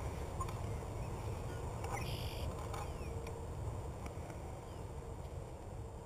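Steady low wind rumble on the microphone, with a brief rustle of camouflage clothing about two seconds in as a face mask and hood are pulled on, and faint bird chirps.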